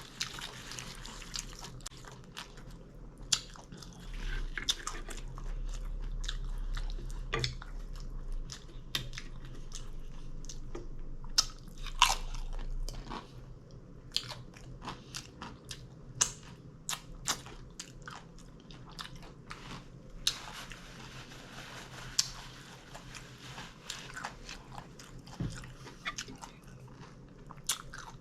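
A person chewing and crunching mouthfuls of taco salad, with many sharp, irregular crunches.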